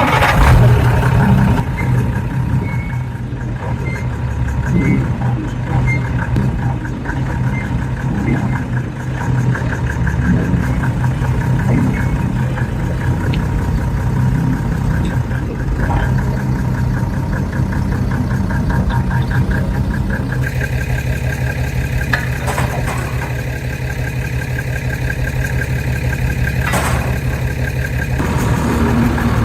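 Mercedes Unimog 416's OM352 six-cylinder diesel engine running steadily. Its sound changes about two-thirds of the way through, with a couple of sharp knocks after that.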